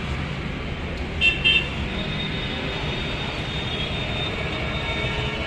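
Steady road-traffic rumble with two short vehicle-horn toots about a second in.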